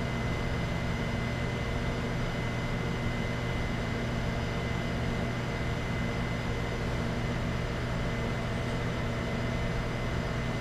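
Steady low electrical-type hum with a faint thin high whine above it, over an even background hiss; no distinct handling sounds.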